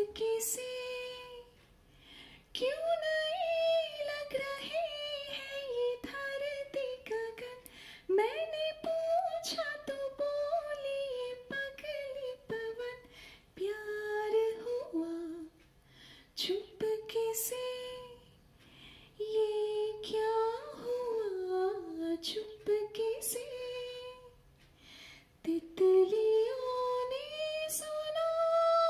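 A woman singing solo and unaccompanied, in phrases broken by short pauses, holding a long sustained note near the end.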